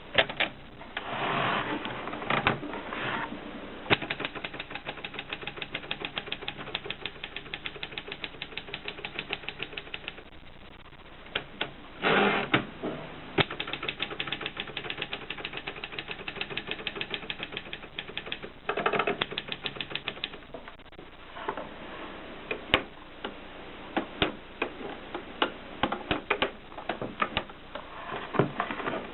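Olympia Filia manual typewriter being typed on, its keys striking in fast, even runs of about eight clicks a second, broken by a few short rattling passages.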